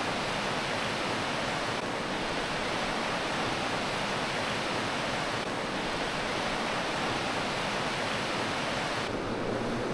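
Steady rushing hiss of river water flowing over the rocks of the Lehigh River.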